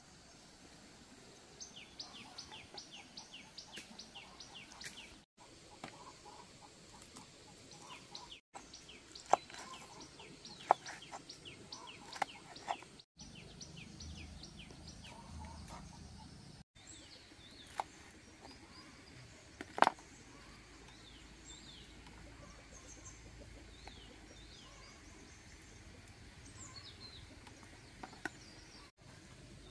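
Birds chirping in fast runs of short, falling chirps, with a few sharp knocks of a knife chopping on a wooden cutting board; the knocks are the loudest sounds.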